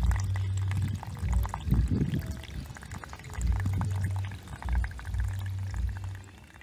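Water sloshing and pouring, with irregular low thumps and small splashy clicks.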